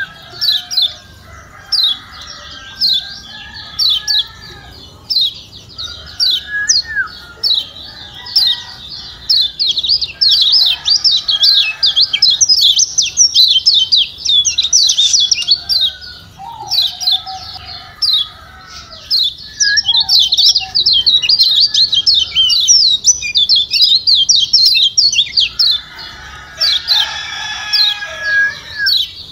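Kecial kuning (Lombok yellow white-eye) giving fast, dense ciak-ciak chirps: a stream of short, high, downward-sweeping notes, thickest in the middle and again near the end. It is used as a perangsang, a stimulant call to set other kecial singing.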